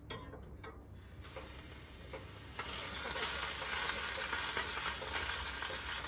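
Water thrown onto the hot stones of a wood-burning tent-sauna stove, sizzling into steam. A few clicks and a soft hiss at first, then a loud, steady hiss sets in about two and a half seconds in.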